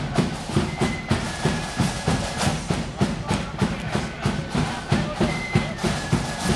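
Marching band drums beating a steady march rhythm, a few strokes a second, with a few thin held high notes over it.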